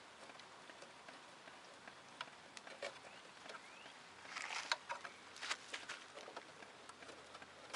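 Faint clicks and rustling of a plastic zip tie being threaded through a hole in a refrigerator's sheet-metal back panel, with a cluster of louder clicks and rustling about four and a half seconds in.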